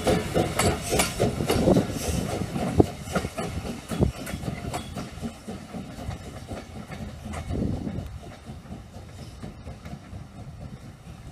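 Steam locomotive No. 9, a 1923 Montreal Locomotive Works 0-6-0 switcher, moving off with its passenger coaches: rhythmic exhaust beats at about three a second for the first couple of seconds, then scattered wheel clicks over the rail joints. The sound fades as the train draws away.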